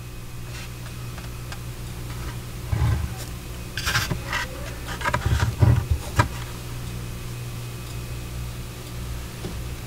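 A large one-piece plastic scale-model fuselage part being handled, turned and set down: a handful of short knocks and scrapes of plastic between about three and six seconds in, over a steady low hum.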